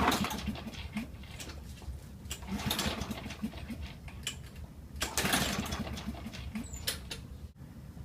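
Husqvarna 6021P push mower's recoil starter pulled three times, the engine cranking over in quick pulses each time but not catching: it will not start, its carburettor clogged with dirt.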